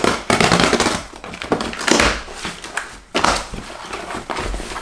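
A cardboard box and the packaging inside it being rummaged through by hand: a steady run of rustling, scraping and crinkling with short knocks.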